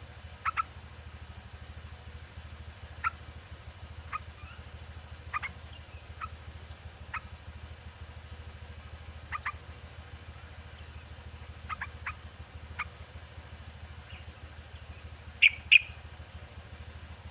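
Yellow-vented bulbul (trucukan) giving short, sharp chirps at irregular intervals, several in quick pairs, the loudest two near the end. A steady high whine and a low hum run underneath.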